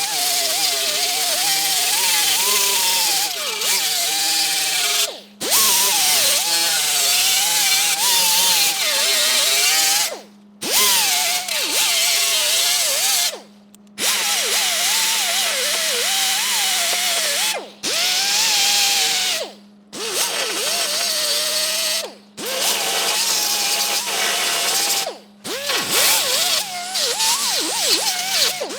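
Hand-held power tool working on metal, its motor pitch wavering up and down as it is pressed and eased off. It runs in stretches of a few seconds with about seven brief stops.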